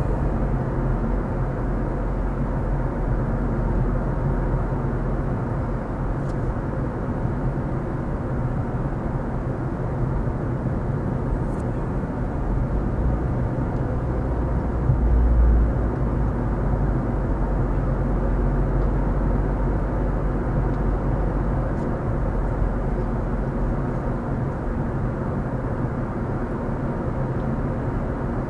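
Car driving along a street, heard from inside the cabin: a steady low rumble of engine, tyres and road noise, which swells briefly about halfway through.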